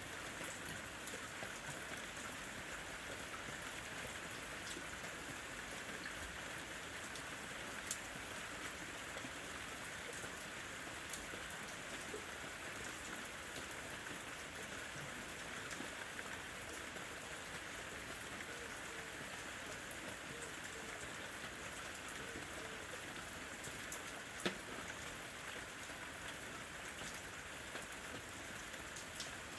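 Light rain falling steadily, an even patter of drops on a surface with a few sharper single drop ticks.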